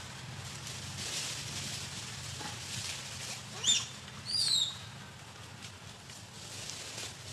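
Two short, high-pitched animal calls about half a second apart, each falling in pitch, the second a little longer, over faint rustling of dry leaves.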